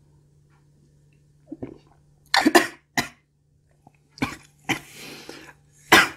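A woman coughing in a string of short, sudden coughs that start about a second and a half in, the loudest about two and a half seconds in and again near the end.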